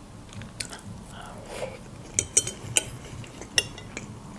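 Metal fork clicking against a ceramic plate: a few light, sharp clinks, most of them between about two and three and a half seconds in.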